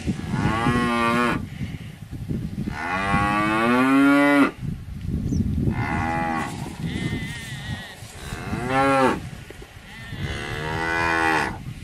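Cattle mooing: about five drawn-out calls one after another, the second, about three seconds in, the longest and loudest, with low noise between the calls.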